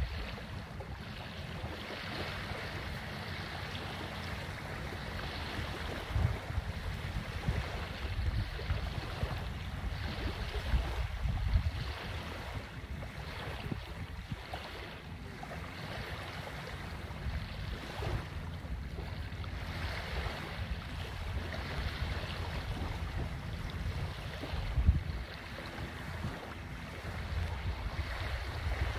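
Wind buffeting the microphone, with a few stronger gusts, over the steady wash of surf on a beach.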